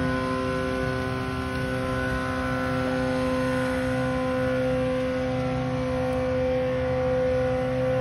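Heavy construction machinery running at a steady pace, a constant droning hum with several fixed tones over a low rumble.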